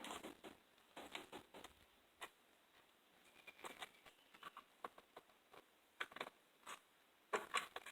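Faint, scattered clicks and light taps of a T25 screwdriver working at the screws of a weed eater's plastic engine covers.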